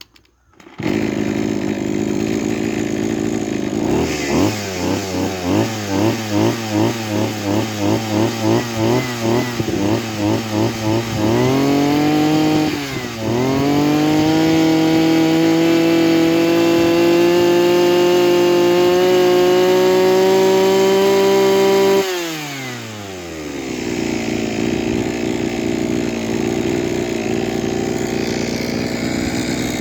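Kioritz SRE2650G brush cutter's small two-stroke engine running: it comes on loud about a second in, idles unevenly with its pitch wavering about twice a second, then revs up and holds a high steady speed for about ten seconds before dropping suddenly back to a low, rough idle. The seller lists a hissing "shaa-shaa" abnormal noise from this engine.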